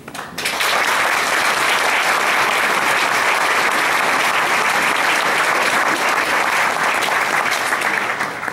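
Audience applauding. The applause starts just after the beginning, holds steady and dies away near the end.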